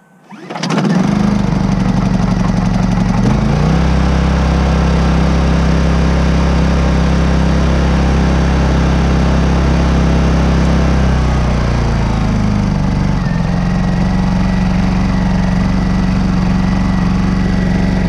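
Honda EU2200i inverter generator's small single-cylinder engine starting about half a second in and running steadily. About twelve seconds in its engine speed drops as it settles into eco-mode idle, running smoothly without missing or hesitating on the stock NGK spark plug gapped to 0.024 in.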